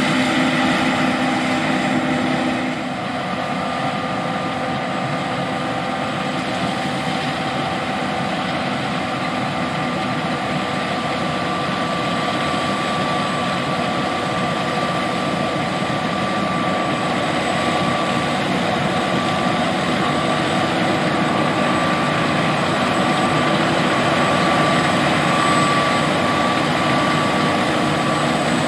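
John Deere S780 combine harvester running steadily while harvesting soybeans: a dense machine hum with several steady whining tones, dipping slightly in loudness about three seconds in.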